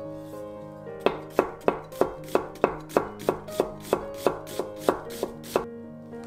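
Chef's knife slicing an onion thinly on a wooden cutting board: about fifteen even strokes, roughly three a second, each knocking on the board. They start about a second in and stop near the end, over soft background music.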